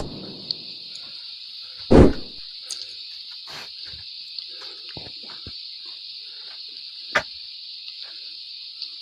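Steady, high-pitched chirring of insects, unbroken throughout. A loud thump about two seconds in, a sharper knock about seven seconds in, and a few faint ticks and knocks.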